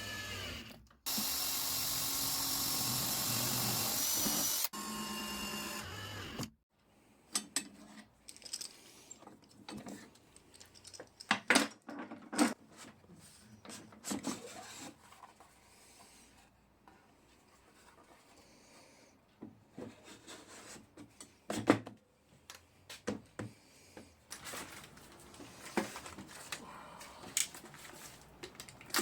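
A power tool runs for about six seconds, loud and steady through the middle and whirring more quietly before and after. After that come scattered knocks, clicks and rubbing as wooden parts and hardware are handled and fitted.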